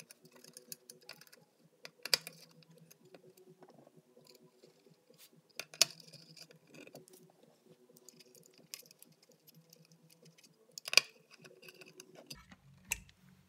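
Small metallic clicks and ticks of a quarter-inch nut driver fitting onto and snugging down the nuts that hold a wah pedal's circuit board, with a few sharper clicks, the loudest about eleven seconds in. A faint steady hum runs underneath.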